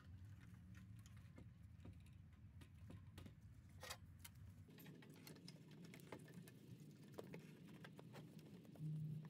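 Near silence with faint, scattered light clicks and taps as the plastic fuel pump module is handled and set into the tank opening, over a faint low hum.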